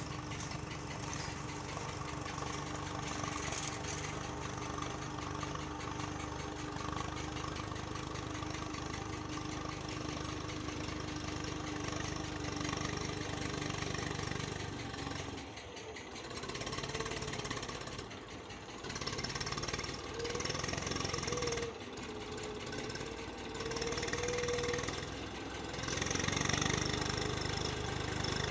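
Eicher 380 tractor's diesel engine running under load as it pulls a loaded trolley through a flooded, muddy field. Its note is steady at first, then falls and rises several times in the second half.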